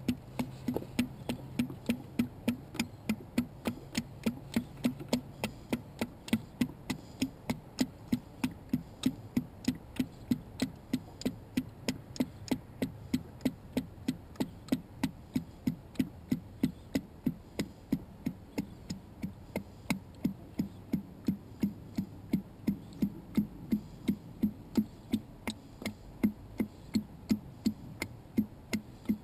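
Engine oil glugging as it pours from a large plastic pail into a funnel: a steady, even rhythm of about two and a half glugs a second.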